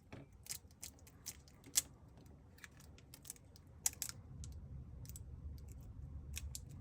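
Small sharp clicks and taps, irregular, from phone parts and tools being handled during a smartphone repair, the loudest just under two seconds in and about four seconds in. A low rumble comes up about four seconds in.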